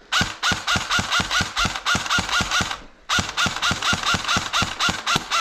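Airsoft gun firing rapidly, about six or seven shots a second, each with a short chirp. It fires one long string, pauses briefly near the middle, then fires another.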